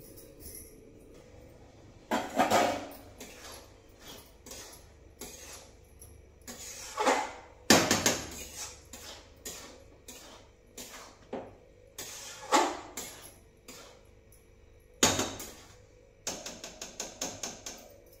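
Metal spatula knocking and scraping against a steel kadhai as rice is stirred and fried: irregular clanks, the loudest about eight seconds in, and a quick run of light taps near the end.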